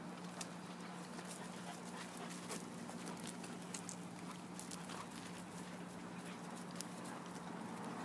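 Several dogs sniffing and walking about on dirt and gravel: scattered small clicks and scuffs, over a steady low hum.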